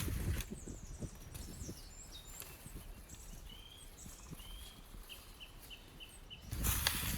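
Small songbirds calling in a quiet forest: thin high chirps and short gliding notes, then a run of five quick identical notes near the end. A louder noisy rush covers the first half second and comes back near the end.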